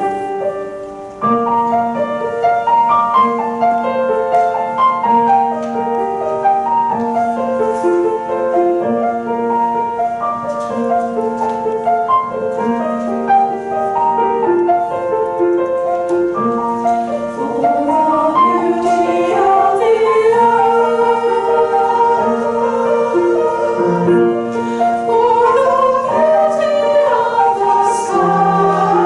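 Mixed choir singing with piano accompaniment, the voices coming in fuller about a second in.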